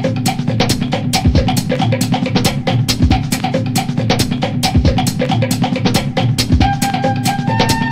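Background music with a steady drum-kit beat of kick and snare; sustained melody notes come in near the end.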